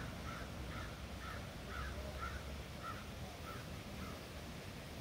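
A crow cawing in a steady series of about eight short calls, roughly two a second, growing fainter toward the end, over a low steady rumble.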